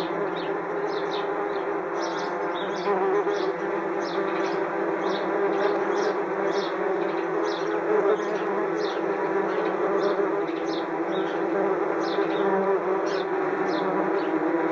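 A large swarm of wasps buzzing steadily around their nest in a dense, unbroken drone. Small birds, mainly sparrows, chirp over it in quick repeated notes.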